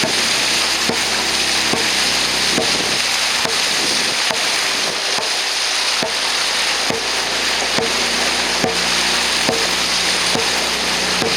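Dragon boat under paddle: a steady rush of water along the hull, with a short regular beat marking each stroke a little more than once a second.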